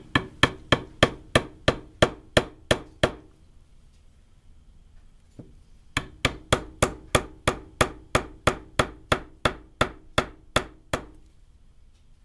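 Two runs of quick, sharp metal-on-metal taps, about three or four a second, with a pause of about three seconds between them. A screwdriver is being tapped to drive a JB Weld–coated bushing into an ICS SIG 552 airsoft gearbox shell. The bushing is going in as a tight fit.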